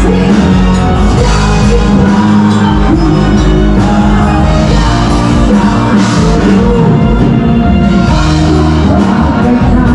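Loud rock music with a singer, played steadily over a sound system.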